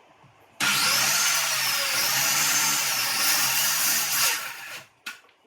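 A loud power tool motor starts abruptly, runs with a slightly wavering pitch for about four seconds, then cuts off.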